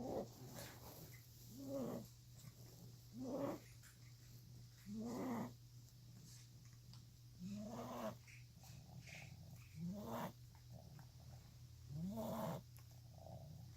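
A cat breathing noisily: each breath carries a short pitched wheeze that rises and falls, repeating every two seconds or so.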